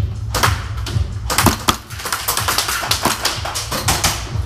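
Airsoft gunfire at close quarters: a run of sharp, rapid cracks and clicks at uneven spacing, thickest about a second and a half in.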